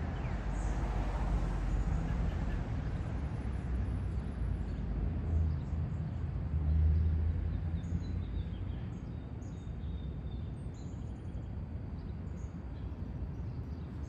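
Outdoor ambience: a steady low rumble with a few faint, short bird chirps scattered through it.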